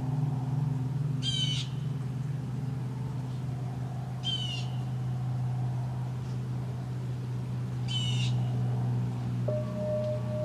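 A bird gives three short calls, about three seconds apart, over a steady low humming drone. Near the end a clear, higher ringing tone comes in and holds.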